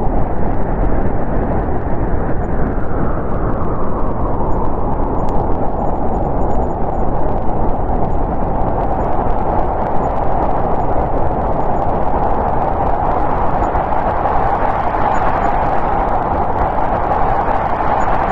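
Snowstorm wind blowing steadily, a loud rushing with a low rumble that slowly swells and eases, rising about two seconds in and again near the end.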